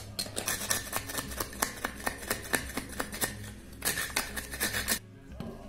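A small metal blade scraping in quick, irregular strokes along the groove of an old wooden door-frame batten, clearing out dried glue that clogs it. The scraping stops abruptly near the end.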